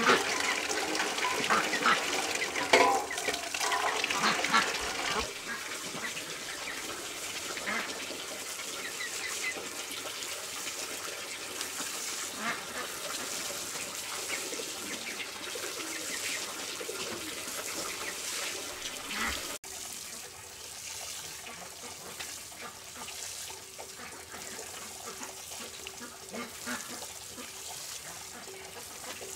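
Water running from a tap into a basin, with farm birds calling over it for the first few seconds. Then water sprinkling from a watering can's rose onto bare soil, an even hiss.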